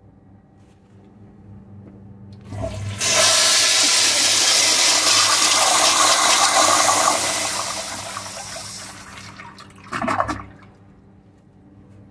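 Toilet flushing: a thump as the flush starts, then a loud rush of water swirling down the bowl that fades over several seconds, with a short final gurgle near the end.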